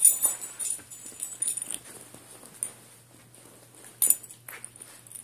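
Small fluffy dog snuffling and moving about on a bed, with the bedding rustling. A run of irregular rustles and clicks is loudest at the start and again about four seconds in.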